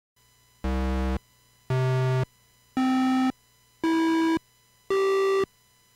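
TRS-80 Color Computer 2 playing the note C in rising octaves from a BASIC PLAY command, sounded through its 6-bit digital-to-analog converter and heard from a recording. Five short, equal-length tones come about a second apart with silence between, each an octave higher than the last, and a sixth begins at the very end. They are rich in overtones rather than pure tones.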